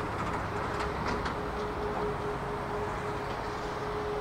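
Airbus A340-600 jet engines running at low power as the airliner rolls along the runway, heard from beside the airfield: a steady rushing drone with a constant hum in it. A few faint, brief high clicks come about a second in.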